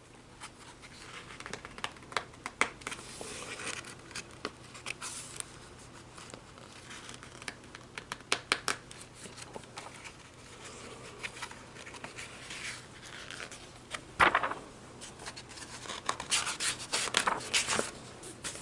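A picture book being handled and its paper pages turned: rustling and crinkling with many sharp clicks and scratches, loudest about fourteen seconds in and again near the end.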